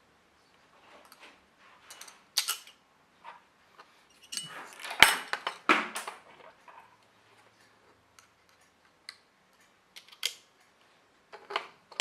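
Light clicks and clinks of small metal hard-drive parts being handled as a platter is fitted back onto the spindle, with a louder cluster of knocks about five seconds in.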